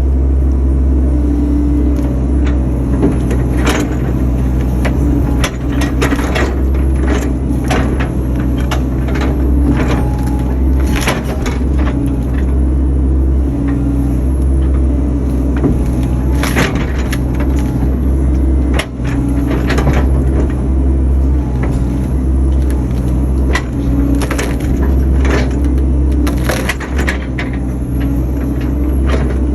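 Excavator engine running steadily under repeated sharp cracks and snaps of wood as the bucket works tree stumps, breaking roots and knocking them clean.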